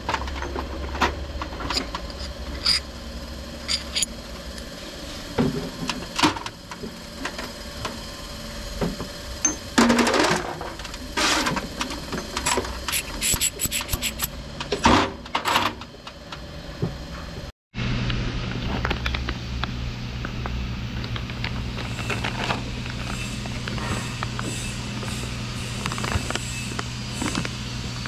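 Irregular metallic clinks and knocks of hand tools on steel parts, some ringing briefly. After a cut about two-thirds of the way in, a steady low machine hum with scattered clicks.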